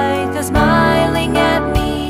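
Background music: a bright, upbeat track with a gliding melody over held bass notes and a beat about once a second.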